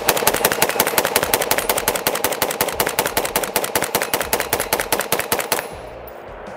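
Desert Tech MDRX bullpup rifle with the Micron conversion kit's 11.5-inch barrel firing a rapid, even string of shots, about five a second, stopping a little over five seconds in.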